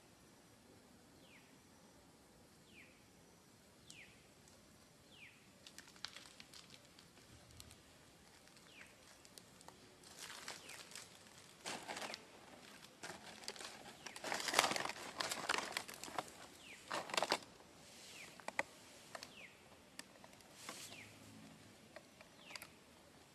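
A bird repeats a short, high, falling chirp about once every second and a half. Then comes a stretch of dry crackling and rustling, loudest about two-thirds of the way through.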